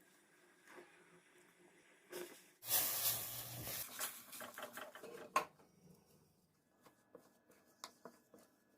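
Kitchen handling sounds while cooking: a rustling, hissy burst lasting about a second, then a sharp clink of a utensil or dish and a few light ticks.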